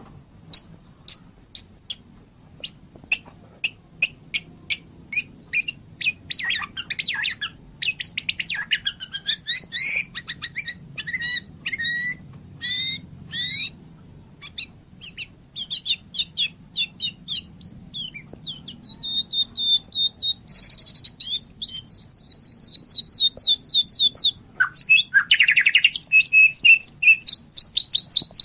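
White-rumped shama (murai batu) singing. It opens with a string of short, sharp separated notes, then moves to varied whistled phrases with rising and falling glides, and rapid trills near the end.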